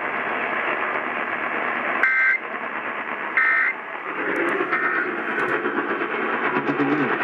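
Hissing AM radio static with three short two-tone warbling data bursts about a second and a half apart, the third fainter: the Emergency Alert System end-of-message code closing a broadcast test.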